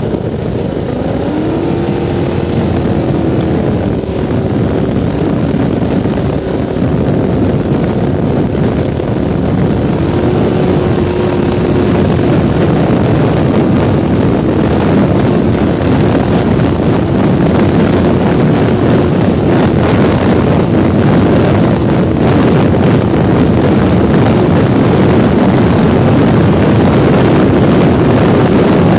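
Picklefork race boat's engine running hard at speed, its note rising a little in the first few seconds and then holding steady, with rushing wind and water over it and the whole getting gradually louder.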